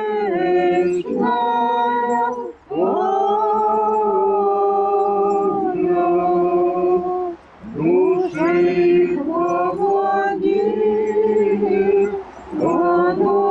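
Small choir singing unaccompanied Orthodox memorial chant in slow, held phrases over a steady low note, with brief breaks between phrases about three, seven and a half, and twelve and a half seconds in.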